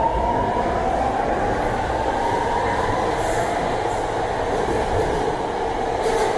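BART train pulling out of an underground station, its motors whining with a slowly rising pitch as it picks up speed over a steady rumble of the wheels on the track.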